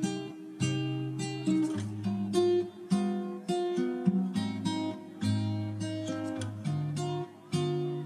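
Background music: an acoustic guitar played in a run of plucked and strummed notes.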